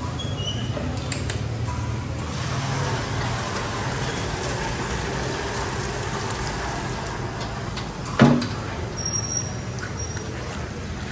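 Steady road-vehicle noise: a low engine hum with road hiss. A single short thump about eight seconds in.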